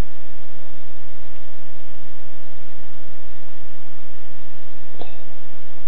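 Steady background hiss with a low hum and a thin steady tone, and no distinct event until a faint click about five seconds in.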